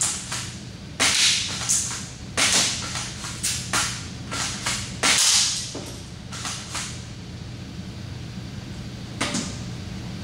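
Spring-powered MP5 replica airsoft rifle firing single shots, sharp snaps about every second and a half, with smaller sharp sounds between them; one last shot comes near the end after a pause of a couple of seconds.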